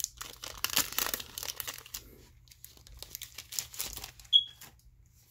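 Foil booster pack wrapper crinkling and being torn open, in two spells of crackling, with a short high squeak a little after four seconds in.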